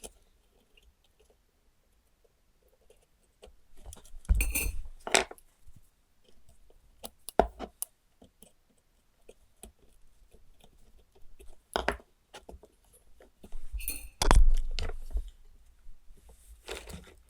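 Small metal tools and wire being handled on a workbench: a few separate bursts of clinking and clattering with short knocks, the loudest about four seconds in and again about fourteen seconds in, with quiet gaps between.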